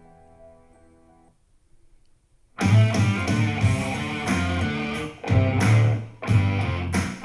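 Music played through a Logitech Z407 2.1 speaker set with subwoofer, picked up by a microphone in the room: a chiming track fades out, a short gap follows, and about two and a half seconds in a new song starts sharply with strummed guitar and heavy bass.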